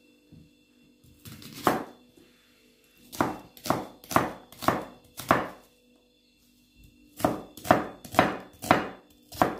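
Knife slicing through an onion, cutting it into thin slices. There is a single cut, then two runs of about five quick cuts each, roughly two a second.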